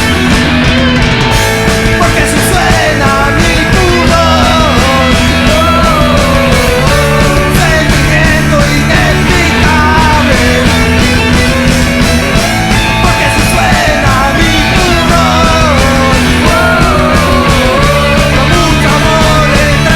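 Punk rock band playing loud and steady: distorted guitars and bass holding chords under drums, with a wavering melodic lead line over the top.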